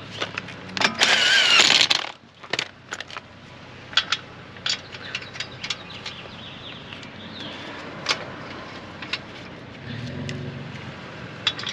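Impact wrench running lug nuts in a loud burst of about a second, followed by scattered metallic clicks and clinks of tools and lug hardware.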